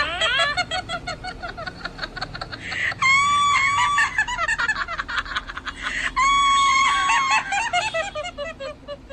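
Eerie horror sound effect: rapid chattering and clicking, broken twice by a loud, shrill, steady cry about a second long.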